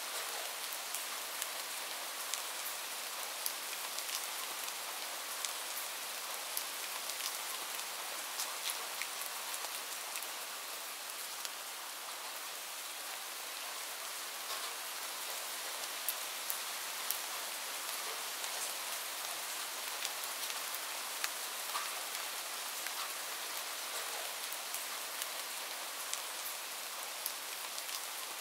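Steady rain falling, a constant even hiss with many small scattered drop ticks.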